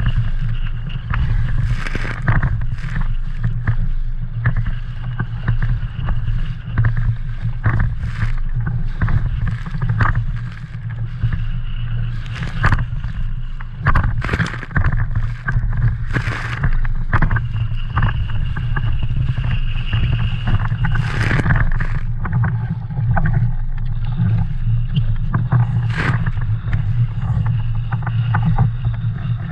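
An inflatable sailing dinghy under way: wind rumbling steadily on the microphone, with many short slaps and splashes of water against the hull.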